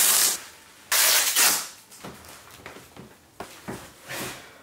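Velcro straps on wrist weights and a weighted vest being ripped open: a tearing rip at the start and a longer one about a second in, followed by quieter fabric rustling and small knocks.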